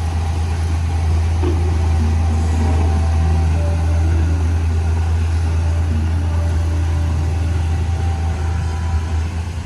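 Mitsubishi bulldozer's diesel engine running steadily with a deep, even drone.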